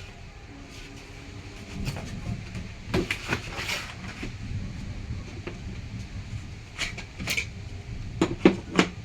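Mixer grinder parts being handled: scattered clicks and knocks with a metallic clink, including a cluster about three seconds in and louder knocks near the end. These are likely the stainless steel jars and lids.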